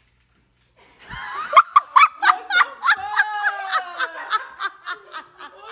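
A woman laughing hard, starting about a second in as a quick run of high-pitched pulses, several a second, easing off toward the end.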